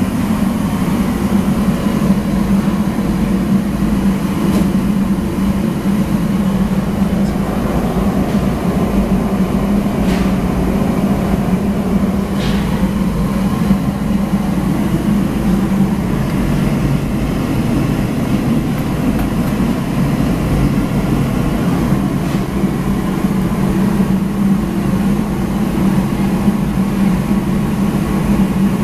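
Commercial kitchen machinery running with a loud, steady roar and a low hum, with a few light clinks.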